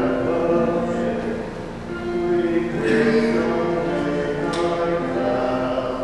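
A small group of voices singing a carol together in long, held notes.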